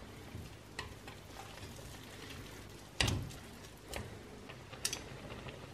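Chopsticks clicking against the pan while breaking up instant ramen blocks simmering in water: a few light knocks, the loudest about three seconds in, over a faint steady hiss of the simmering water.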